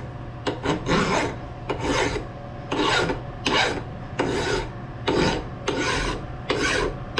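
Flat hand file rasping back and forth across the edges of a metal casting held in a vise, in roughly ten even strokes, a little over one a second. The strokes are deburring, breaking the casting's sharp edges.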